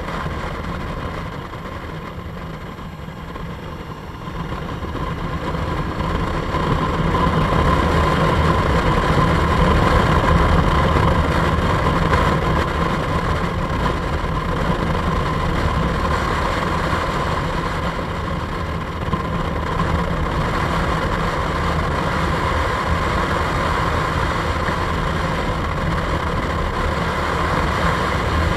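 Motorcycle engine running under way, with wind rushing past. It is quieter for the first few seconds and grows louder from about five seconds in, then holds steady, with a steady high whine throughout.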